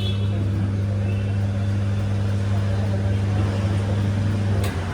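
Wheel balancing machine spinning a tyre with a steady hum. The hum cuts off near the end with a click as the wheel is stopped.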